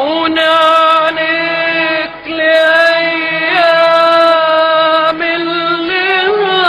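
A solo voice singing long, held notes, sliding briefly from one pitch to the next between them.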